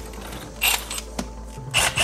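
Cordless drill with a long bit running in two short bursts as it bores a hole through the wall: a brief one about half a second in and a longer one starting near the end.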